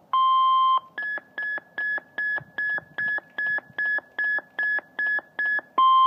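Cobra MR HH425 handheld marine VHF radio sounding a weather alert through its small speaker. A short steady tone is followed by a quick run of about a dozen higher beeps, about two and a half a second. Near the end the NOAA Weather Radio warning alarm tone starts, long and steady, heralding a severe thunderstorm warning.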